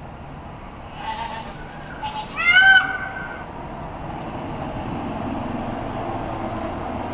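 Male Indian peafowl (peacock) calling: a loud, short honking call about two and a half seconds in, with fainter calls a second or so before it.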